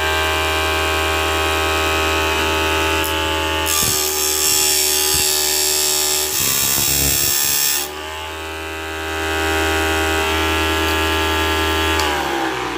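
Homemade disc sander driven by a 775 DC motor, running with a steady whine. From about four seconds in, a wooden craft stick is pressed against the spinning sanding disc, adding a harsh sanding hiss for about four seconds while the motor labours; the motor then picks back up to speed. Near the end it is switched off and starts to wind down, its whine falling in pitch.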